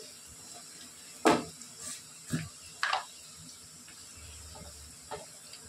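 Metal kitchen utensil knocking against a cooking pot: four sharp clinks, the first, about a second in, the loudest, over a low steady background hiss.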